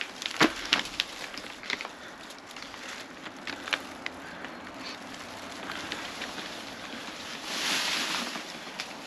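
Plastic crinkling and rustling as a shrink-wrapped case of plastic bottles is handled among plastic trash bags. There are a few sharp clicks and knocks in the first two seconds and a louder rustle near the end.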